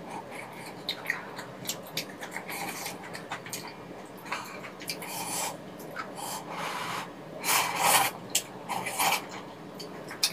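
Close-miked sounds of eating soupy rabokki: chewing and wet mouth clicks, with longer, louder slurps of ramen noodles in the second half.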